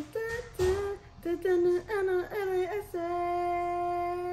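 A woman's voice singing or wailing in a string of short sliding notes, then holding one long, steady note for about two and a half seconds near the end.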